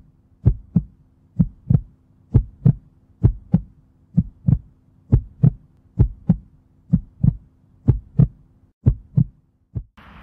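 Heartbeat sound effect: a steady lub-dub of paired low thumps, about one beat a second, over a faint steady hum. It stops near the end and gives way to outdoor background noise.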